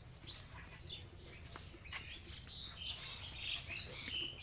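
Small birds chirping, many short high calls, busier in the second half.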